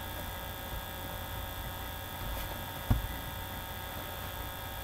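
Steady electrical hum and hiss in the recording, with one soft low thump about three seconds in as a paperback book is handled and its pages leafed through.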